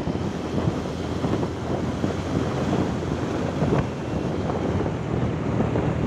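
Wind buffeting the microphone of a camera carried on a moving motorbike, a steady low rush of noise with the ride's road noise mixed in.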